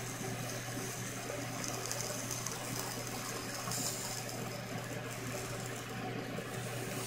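Chicken drumsticks sizzling and crackling on a miniature kettle grill as metal tongs turn them, with small clicks of the tongs against the wire grate, over a steady low hum.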